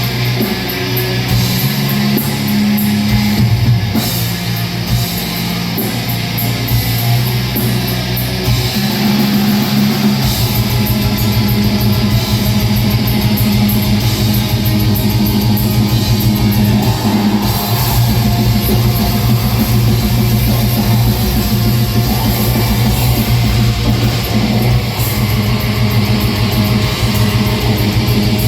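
Live black metal band playing: distorted electric guitars over sustained low notes, with drums and cymbals. About ten seconds in, the low end thickens with rapid kick-drum strokes.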